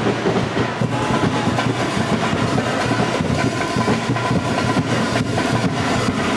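Loud, steady din of a basketball game crowd, with many short knocks and claps running through it.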